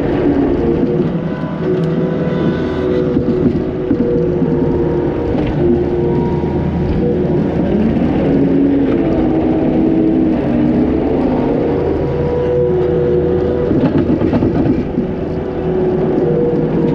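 Takeuchi TL250 compact track loader running under load, heard from the cab: steady engine hum with a hydraulic whine that steps and glides in pitch as the bucket is raised, curled and lowered to spread fill dirt.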